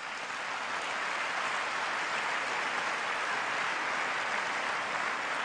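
A large audience applauding, the clapping steady and even.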